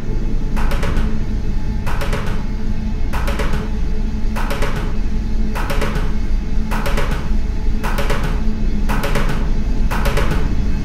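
Plastic buckets drummed with sticks: quick clusters of sharp stick clicks about every second and a quarter over a steady low, booming rumble.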